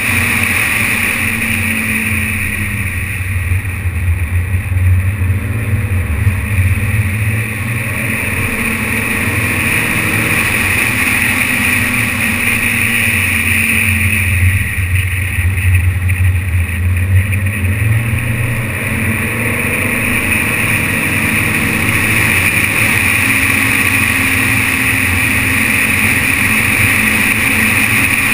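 BMW 530d car on the move: a steady engine drone with road and wind noise, muffled by the GoPro's closed waterproof housing. The engine note rises and falls several times as the throttle changes.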